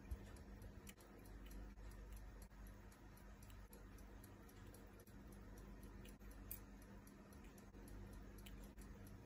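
Faint, sparse, irregular clicks of steel tweezers picking at and lifting small parts out of a Tag Heuer quartz watch movement during disassembly, over a low steady hum.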